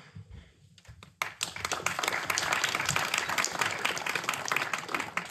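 Audience applauding: the clapping starts abruptly about a second in and dies away near the end.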